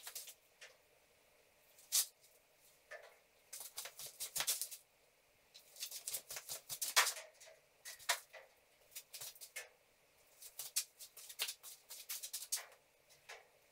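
Scattered light clicks, scuffs and rustles of a person working on metal drywall studs: walking in slippers and handling a tape measure and the steel profiles, in clusters rather than a steady rhythm.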